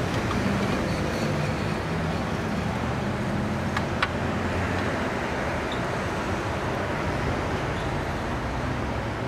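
Steady street traffic noise, passing vehicles with a low engine hum, with two faint clicks about four seconds in.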